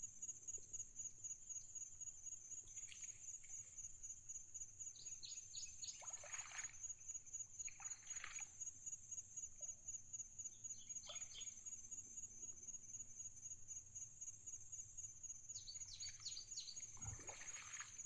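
Birds calling now and then, several quick runs of falling notes and a few harsher calls, over a steady high-pitched insect trill.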